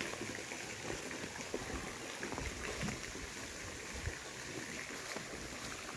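Steady rush of water flowing over stone steps into a pool, with a few light footsteps on the stone path.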